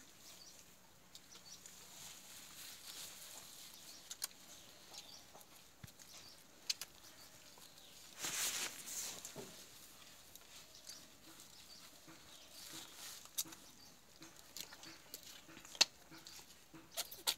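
Quiet sounds of a wet dog being shampooed by hand: soft rubbing of wet, lathered fur, a brief hissing scrub about eight seconds in, and a few scattered clicks.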